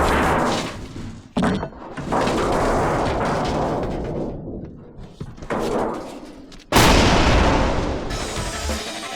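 Strong gusts of wind buffeting the microphone, rising and falling in waves, with sudden heavy thuds as gusts hit; the strongest gust comes about seven seconds in.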